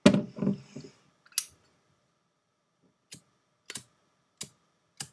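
A loud knock with a short muffled sound right at the start, a sharp click about a second and a half in, then four single sharp clicks, evenly spaced about two-thirds of a second apart.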